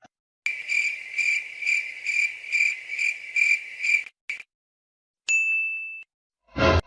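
Cricket chirping sound effect, a steady high trill pulsing about two to three times a second for a few seconds, the classic awkward-silence reaction sound. A short bright ding follows, and a louder sound starts just at the end.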